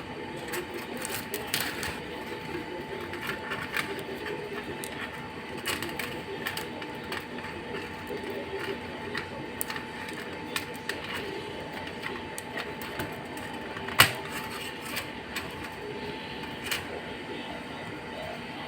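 Irregular small clicks and taps, with one sharp, louder knock about fourteen seconds in, over a faint steady hum.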